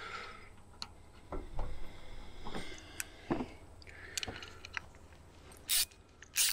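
Small metal clicks and taps as a 7.3 IDI diesel's fuel shutoff solenoid is turned over and taken apart by hand, with a few dull knocks in the middle and two short scraping rustles near the end.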